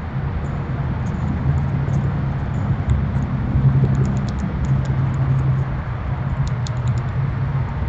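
A steady low rumble, a little louder around the middle, with faint short high ticks scattered through it.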